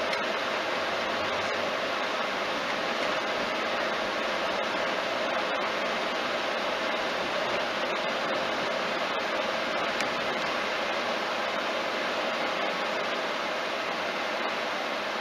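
Steady noise inside a moving car's cabin: tyre and road hiss with a faint steady hum, easing slightly near the end as the car slows.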